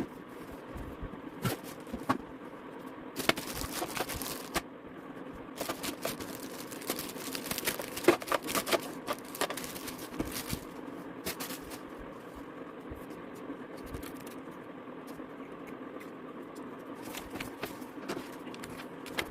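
Packaging being handled during an unboxing: irregular scrapes, rustles and clicks, busiest about eight to nine seconds in, over a faint steady hum.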